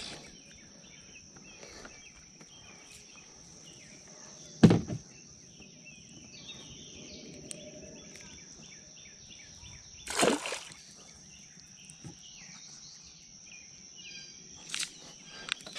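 Quiet outdoor ambience by a lake: birds chirping over a steady high-pitched whine. Two sharp knocks come about five seconds in and about ten seconds in, as the small bluegill is handled and unhooked in the kayak.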